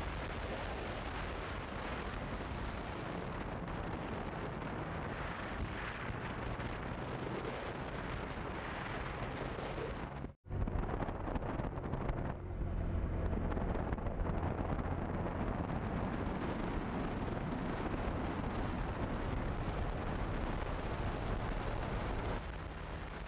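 Riding on a Honda CB150F motorcycle: wind rushing and rumbling over the microphone, with the engine running steadily underneath. The sound drops out for a moment about ten seconds in, then comes back louder with a heavier low rumble.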